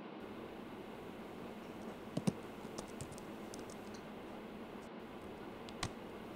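Laptop keys clicking, a few scattered keystrokes, with two sharper knocks about two seconds in and one more knock near the end as the laptop lid shuts, over a steady low room hiss.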